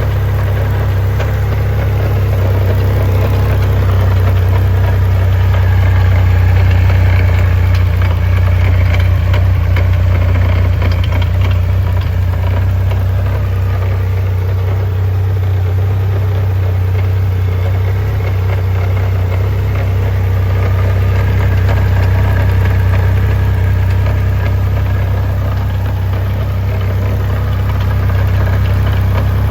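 2021 Triumph Rocket 3 GT's 2.5-litre inline three-cylinder engine idling steadily, with a weird mechanical noise that the owner puts down to the transmission.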